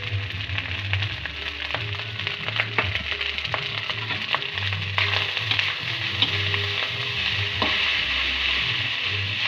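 Fried rice sizzling in a hot wok while a metal spatula stirs and scrapes through it, with many short clinks of the spatula against the pan.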